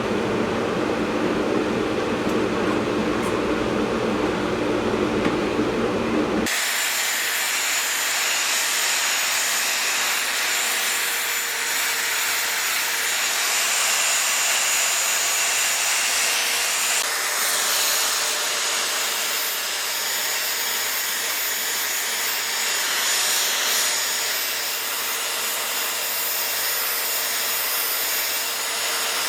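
A power tool working wood. It starts as a low rumbling grind, then changes abruptly after about six seconds to a steady high whine with hiss.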